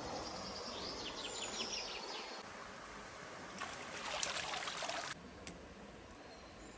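Steady rushing noise of running water outdoors, with a quick run of short bird chirps about a second in.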